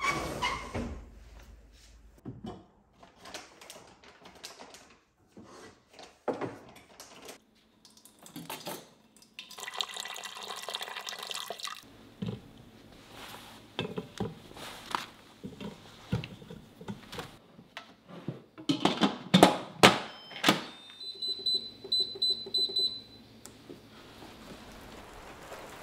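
Kitchen prep sounds: a couple of seconds of running water, then knocks and clatter as sweet potatoes are set on an Instant Pot's steamer rack. Near the end the Instant Pot's control panel gives a quick series of high-pitched beeps as the 16-minute steaming time is set.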